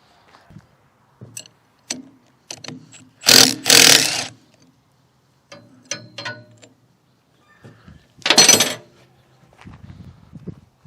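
Metal clicks and knocks with two louder bursts of metal noise, about three seconds in and about eight seconds in, as a PTO driveshaft is worked off a rotary cutter's gearbox shaft.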